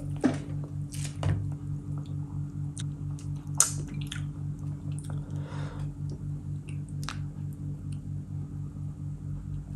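Wet squishing and dripping as hands handle saucy food: a lemon wedge squeezed, fingers in a bowl of curry gravy, gravy poured over mutton. There are scattered short clicks, the sharpest about three and a half seconds in, over the steady low beat of background music.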